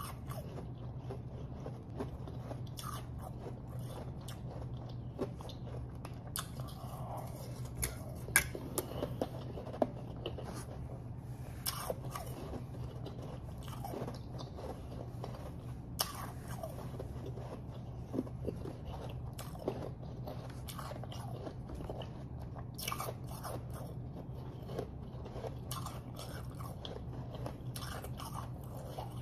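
Close-miked biting and chewing of refrozen powdery snow ice: irregular sharp crunches and softer chewing, with a cluster of the loudest crunches around eight to twelve seconds in. A steady low hum runs underneath.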